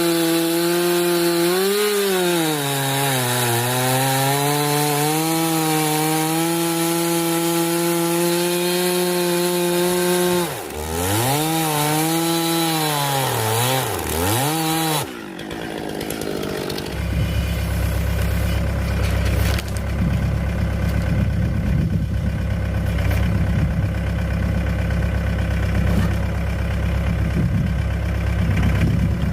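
Chainsaw running hard in a cut, its pitch sagging under load, then dropping off and revving back up a few times about ten seconds in. About halfway through it gives way abruptly to a deep engine idling steadily.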